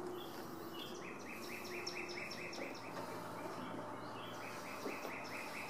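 Rhythmic high chirping from outdoor wildlife, about four or five short chirps a second, starting about a second in, breaking off briefly midway and then going on, over a faint steady hum.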